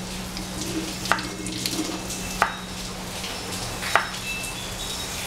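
Kitchen knife slicing peeled potatoes thin on a wooden cutting board, the blade knocking on the board three times, about a second and a half apart, over a steady low hum.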